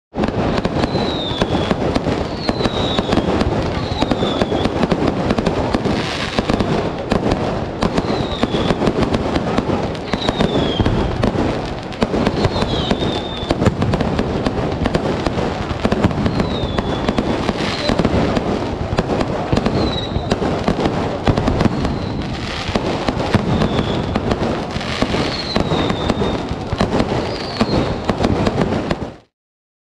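A dense fireworks display: firecrackers and aerial shells going off in a continuous crackle of sharp bangs, with short falling whistles every second or two.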